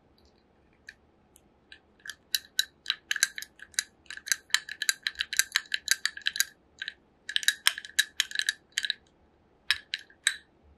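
A metal utensil stirring coffee and milk in a drinking glass, clinking against the glass: many quick ringing clinks in runs with short pauses, starting about two seconds in.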